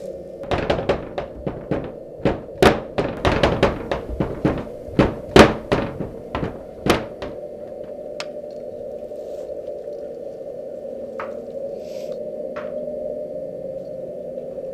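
A rapid, irregular flurry of loud knocks and thunks, about twenty in the first seven seconds, then a few scattered single knocks. A steady low drone hums underneath throughout.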